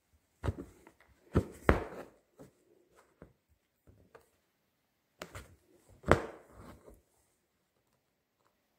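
Hand embroidery on cloth stretched taut in a wooden hoop: a needle pushed through the drum-tight fabric and thread pulled after it, making irregular sharp taps and thumps. Two louder thumps come about two seconds in and again about six seconds in, with brief rasps after them.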